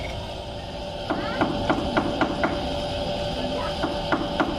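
Repeated sharp knocks, about three to four a second, in two runs: one starting about a second in and another near the end.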